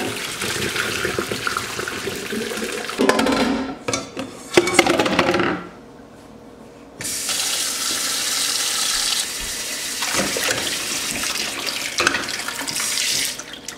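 Hot water poured off a saucepan of boiled eggs into a stainless steel sink, with a couple of louder bursts of splashing and clatter partway through. After a short lull, the kitchen tap runs steadily into a bowl of ice water holding the eggs.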